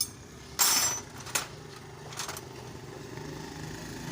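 A motorcycle engine idling steadily, with four short harsh noises from hand work over it, the loudest about half a second in.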